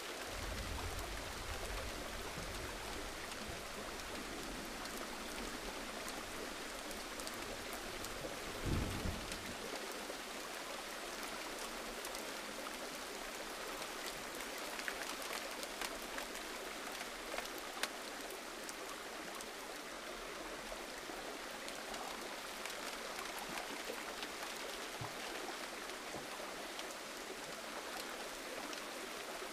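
Gentle rain falling steadily: an even hiss flecked with scattered louder drops. A low rumble lies under it for the first ten seconds and is loudest about nine seconds in.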